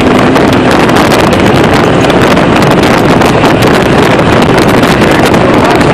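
Loud, steady wind buffeting the microphone over the running engine and tyres of an open off-road vehicle driving a gravel dirt road.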